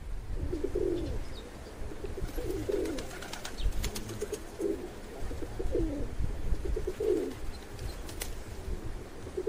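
Domestic pigeons cooing: a run of six or seven low, throaty coos, about one a second.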